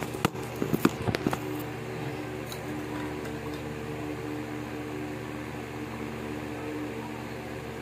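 A few handling knocks and clicks in the first second and a half, then a steady machine hum with several steady tones, like an electric fan running.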